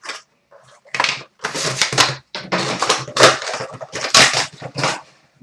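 Crinkling and tearing of hockey card pack wrappers, in quick irregular bursts, as packs are opened and the cards handled.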